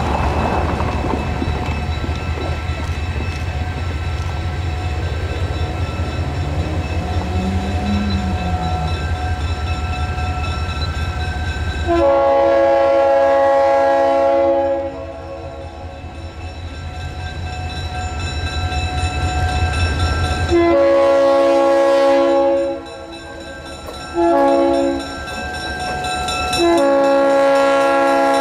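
Diesel locomotive 4241 approaching with a steady low engine rumble, then sounding its multi-tone air horn: two long blasts, a short one, and a long one held to the end, the pattern sounded for a grade crossing.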